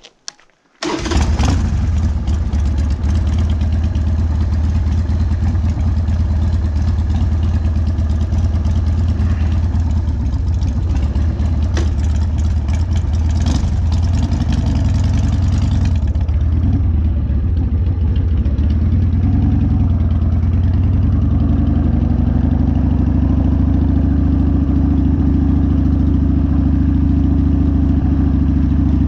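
1999 Harley-Davidson Sportster's Evolution V-twin engine running loudly, starting suddenly about a second in, with wind noise on the microphone that falls away about halfway through. The owner hears a metal-on-metal noise in it that comes and goes with speed and is absent at idle, despite fresh oil and a properly tensioned primary chain.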